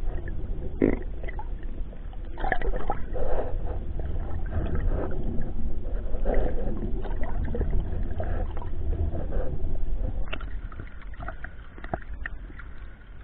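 Muffled water sloshing and gurgling over a steady low rumble, with scattered small clicks and knocks.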